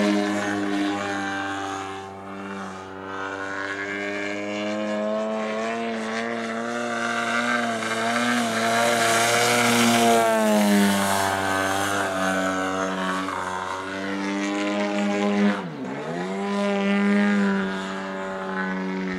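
Radio-controlled aerobatic model airplane's engine and propeller running through manoeuvres, the pitch gliding up and down with the throttle. It is loudest around the middle as the plane passes low. About three-quarters through, the pitch drops sharply and climbs straight back up.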